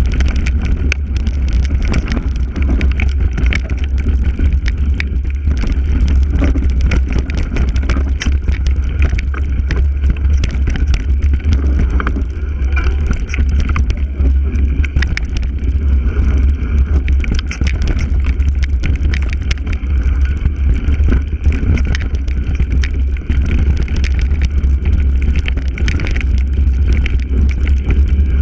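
Mountain bike riding over a rough, stony dirt trail, heard from a camera mounted on the handlebar: a heavy low rumble of wind and vibration on the microphone, tyres on gravel, and constant rattling clicks as the bike jolts over rocks.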